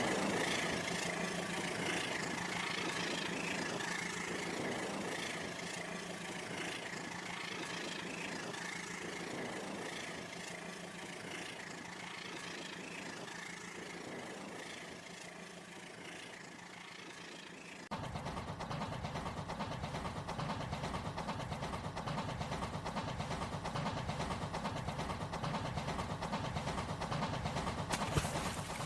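A machine running steadily with a constant hum, slowly fading, then cutting abruptly about two-thirds of the way through to a louder, rougher running sound.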